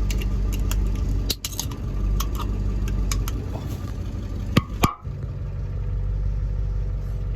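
A Ford F350 pickup's engine running with a steady low hum, with a few sharp clicks about a second in and again near the middle.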